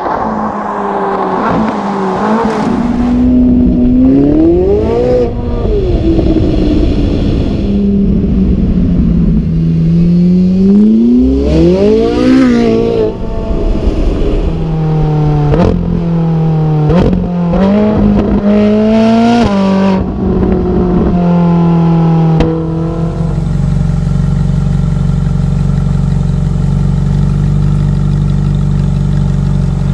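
Ferrari 458 Italia's 4.5-litre V8 accelerating hard, its revs climbing and dropping sharply at each gearshift several times over. For about the last seven seconds it settles to a steady low idle.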